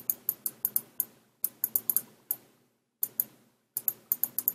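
Stylus tip tapping on a tablet screen while handwriting, sharp light clicks in quick irregular clusters with short pauses between them.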